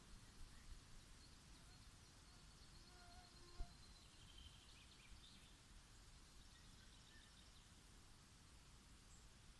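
Near silence: quiet woodland ambience with faint distant birdsong, and one short knock about three and a half seconds in.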